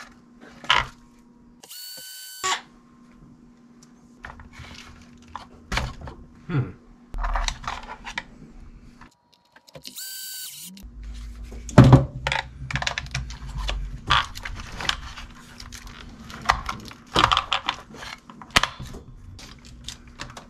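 Cordless electric screwdriver whirring in two short runs, about two seconds in and again about ten seconds in, working screws on an RC car's plastic chassis. Between the runs come clicks and rattles of small plastic parts and screws being handled.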